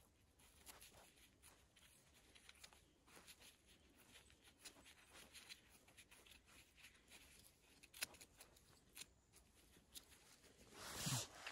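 Faint scraping and cutting of a small knife trimming the soil-covered base of a bolete's stem: a run of soft, short scrapes, with one sharper click about eight seconds in. Near the end comes a louder rustling swish.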